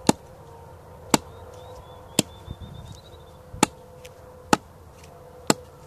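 Six sharp wooden knocks, about one a second, as a stick is split by working a fixed-blade knife down into it without a baton.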